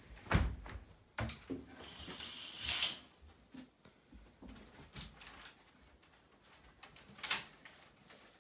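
Knocks and thumps of a barn owl taking off from and landing on furniture and a perch, with wing flaps on landing; a brief hiss about two to three seconds in. The loudest thumps come near the start and about seven seconds in.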